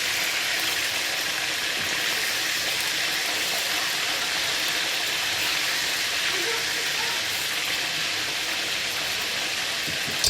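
Chicken wings frying in hot oil: a steady sizzle.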